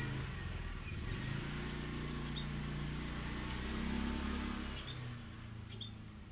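A motor vehicle engine running steadily, its low hum shifting in pitch a few times and fading away near the end, with a few faint chirps above it.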